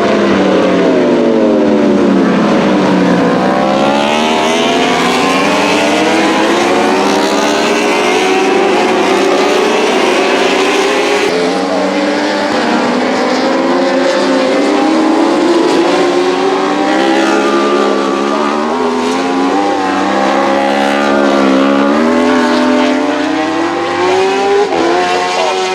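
Several superbike racing motorcycles at high revs going past one another, their engine notes overlapping. The pitch falls over the first few seconds, then climbs and drops again and again through gear changes and passes.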